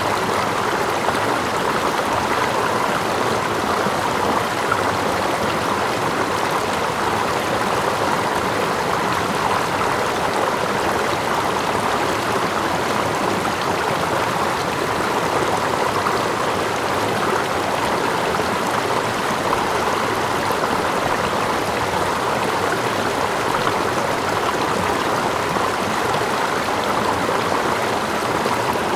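Steady rushing of a stream, running water with gentle lapping close by, an even, unchanging water ambience.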